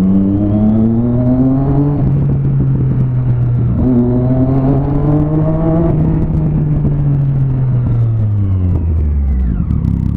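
Motorcycle engine heard from the rider's seat, pulling through the gears: the revs climb, drop at a shift about two seconds in, climb again around four seconds, then fall away as the bike slows near the end.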